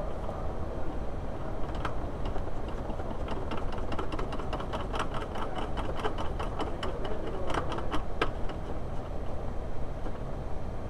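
Irregular metallic clicks and light rattles from hand work on a car's handbrake lever and cable mechanism, coming in two busy clusters, over a steady low hum.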